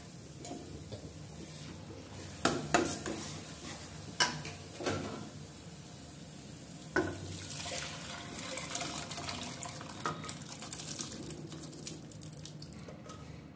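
A steel ladle knocks and scrapes against a steel pan as boiled kidney beans are stirred into thick masala, with several sharp clinks in the first seven seconds. From about halfway, liquid pours into the pan with a steady splashing hiss.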